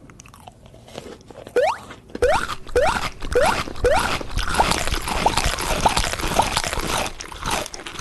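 Crunchy food being bitten and chewed close to the microphone: a dense crackle of crunches that gets loud about two seconds in, with a short squeak at each chew.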